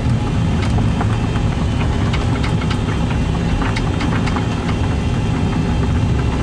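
Excavator's diesel engine running steadily while the machine works dirt, with scattered sharp clicks and knocks over the low rumble.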